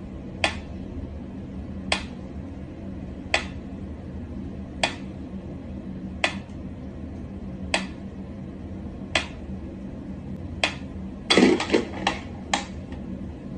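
Mechanical pyramid metronome ticking slowly and evenly, one sharp tick about every second and a half. Near the end a louder, quicker clatter of knocks breaks the pattern.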